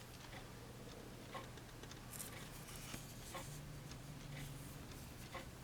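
Faint handling noise: a few light, irregular clicks and a brief rustle over a low steady hum.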